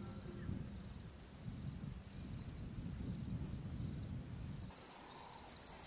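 Quiet natural ambience: an insect chirping in short, high pulses about every three-quarters of a second, over a low rumble that stops near the end.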